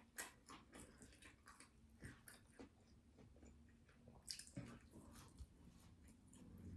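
Faint, wet chewing and mouth clicks of someone eating hot-sauce-covered nuggets, with a slightly louder cluster of smacks about four seconds in.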